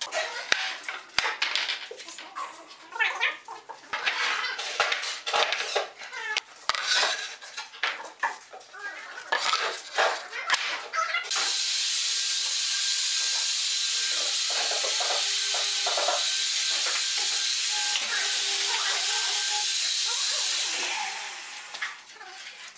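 Wooden door frame parts and pine boards knocking and clattering as they are handled on a concrete floor, in quick irregular knocks. About halfway through, a steady hiss starts abruptly, holds for about ten seconds and then fades out.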